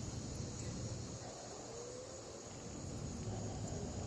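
Steady high-pitched trilling of insects, likely crickets, over a low outdoor rumble.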